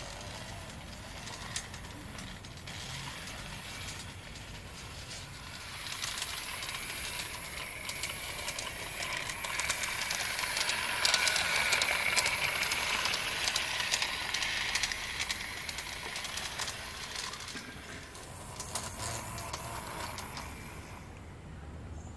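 LGB Draisine 2001 G-scale model handcar running along garden-railway track: its motor and gears whirr, with many small clicks from the wheels on the rails. It grows louder as it passes close about halfway through, then fades.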